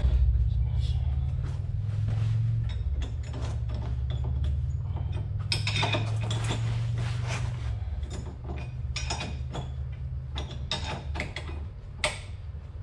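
Steel wrenches clicking and clinking on the traction bar's bolt and lock nut as it is snugged up by hand, in many small clicks with a sharper one near the end. A steady low hum runs underneath.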